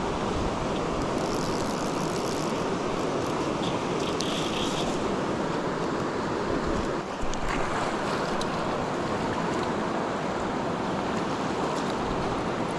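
Steady rush of a river running over a rocky rapid, with a brief dip about seven seconds in.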